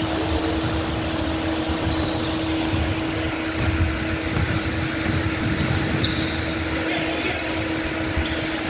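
Indoor gym basketball game: a ball bouncing on the hardwood and players' voices calling out, over a steady hum.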